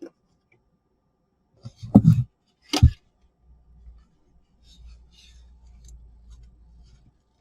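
Handling of a small plastic camping fan: two knocks about two and three seconds in, then faint crackling and low rumbling as it is turned over in the hands.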